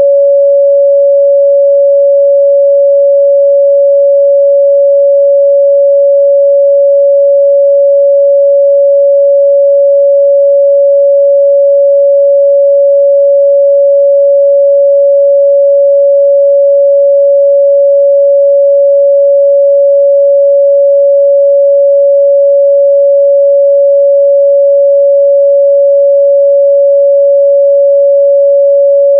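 A pure 562 Hz sine-wave test tone, held steady and loud at one pitch without a break.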